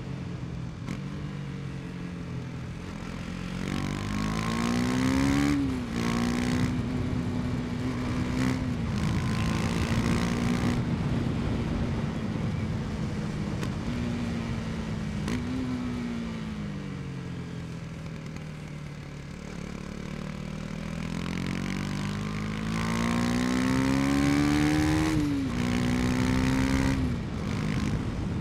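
KTM Duke 250's single-cylinder engine pulling under way: the revs climb and drop sharply at an upshift about five seconds in, hold steady for a while, ease off through the middle, then climb again to two more upshifts near the end.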